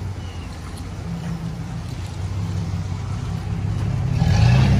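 Chevrolet Silverado SS pickup's V8 engine idling steadily, getting louder about four seconds in.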